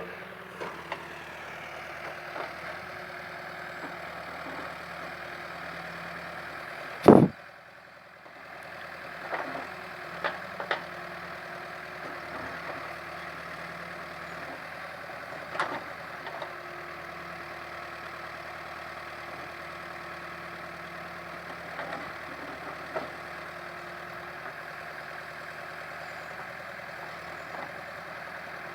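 Caterpillar 428C backhoe loader's diesel engine running steadily, with one loud thump about seven seconds in and a few sharper, smaller clanks after it.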